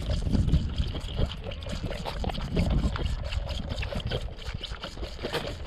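Boer goat kids sucking and slurping milk from feeding bottles: an uneven wet, gurgling sound with small clicks, over a low rumble.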